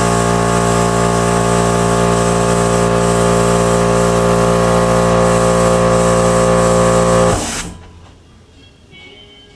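Small airbrush air compressor running with a steady, even hum under a hiss of air, cutting off abruptly about seven seconds in.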